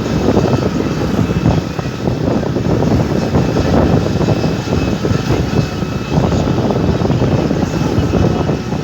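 Preet combine harvester running loud and steady, its engine and machinery giving a dense low rumble with a faint steady whine above it.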